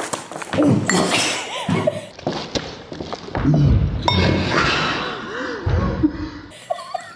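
Wordless voice sounds mixed with handling noise at a table: thuds, knocks and clinks of containers, with a couple of heavier low thumps in the second half.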